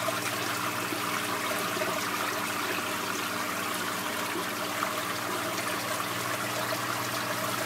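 Water splashing and trickling steadily in a tilapia tank, with a steady low hum underneath.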